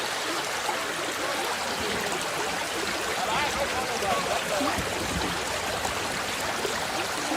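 River water rushing steadily, with faint voices in the background.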